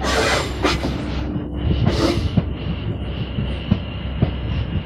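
Greater Anglia Class 720 Aventra electric multiple unit moving along the platform, its running noise steady with a high whine. Bursts of hiss come near the start and again about two seconds in.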